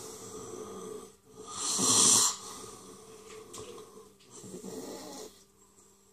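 A person breathing hard with rasping, snore-like breaths, the loudest a sharp gasp about two seconds in; the breathing dies away about five seconds in.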